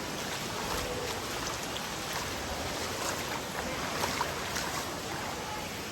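Steady rush of falling water from a waterfall, an even hiss with a few faint ticks.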